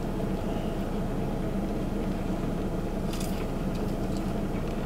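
Steady low hum inside a car cabin, with a brief sharp noise about three seconds in.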